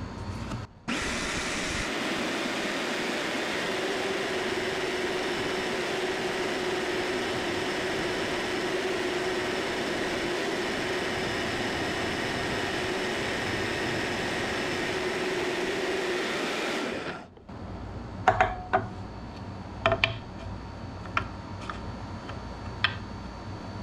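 Power saw running steadily as it cuts a piece off metal stock, with a constant hum under a noisy cutting sound. It stops abruptly about three-quarters of the way through, and a few light clicks and taps follow as the work is handled.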